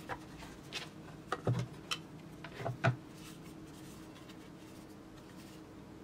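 Handling clicks and knocks from the plastic case of Eachine EV800D FPV goggles as the display unit is separated from its visor hood and turned over in the hands: a few sharp taps over the first three seconds, over faint room tone.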